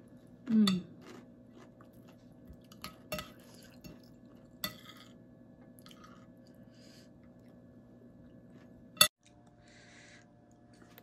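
Quiet chewing over a meal of bubur Manado (rice porridge) with fried shallots, with scattered light clicks of tableware and a brief hum of voice near the start. One sharp, louder click comes about nine seconds in.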